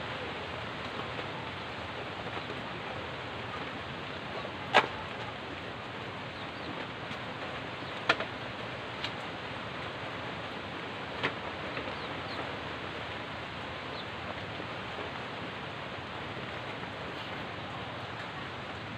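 Steady hiss of rain falling, with a few sharp knocks standing out, the loudest about five seconds in and another about eight seconds in.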